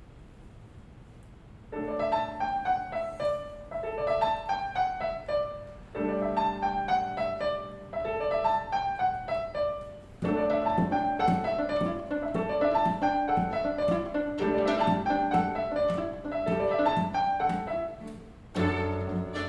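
Solo piano playing a new section of a string-quartet-and-piano arrangement: after a short pause it sets out a repeated pattern of falling note figures. Near the end the strings come in with a low sustained note.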